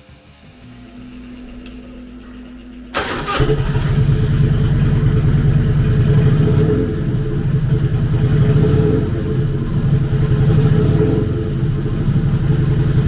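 2001 Harley-Davidson Softail Night Train's 88 cubic inch V-twin with Screaming Eagle exhaust being started: the electric starter whirs for about two and a half seconds, then the engine fires with a sudden loud burst about three seconds in and keeps running steadily.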